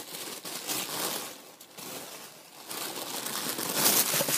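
Turquoise tissue paper crinkling and rustling as it is handled and pulled out of a box, loudest near the end.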